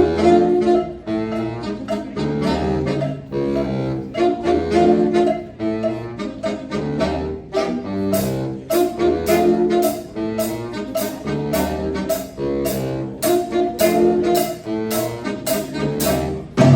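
School jazz band playing a repeating riff over a bass line with drum kit. Crisp high strokes land on the beat from about halfway through.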